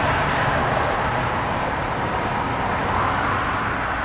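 Steady noise of road traffic passing by on a busy street.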